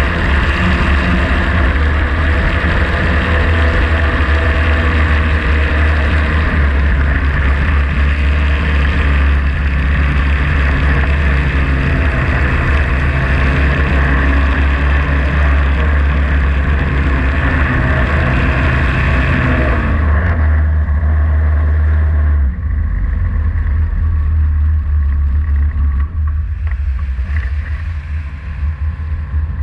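Small racing hydroplane's engine running hard at speed, with rushing wind and spray. About twenty seconds in the engine note falls as the throttle comes off, and the boat runs on slower and quieter, with water splashing around the hull.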